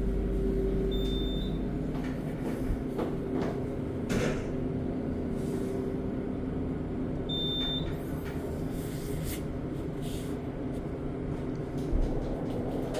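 Elevator car travelling with a steady low hum and rumble. A short high beep sounds about a second in and again about seven seconds in, with a few light clicks in between.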